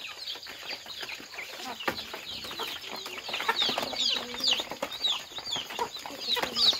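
A flock of chickens feeding on grain, with chicks peeping in many short, falling chirps over the lower clucking of hens. The peeping grows busier about halfway through, and there are scattered taps of beaks pecking on corrugated metal sheets.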